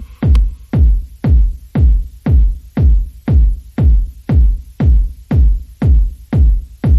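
Electronic dance music with a heavy kick drum on every beat, about two a second, each kick falling in pitch.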